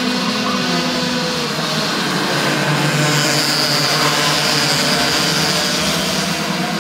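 A pack of 60cc two-stroke racing kart engines running at race speed, their high-pitched buzzes overlapping, a little louder about three seconds in.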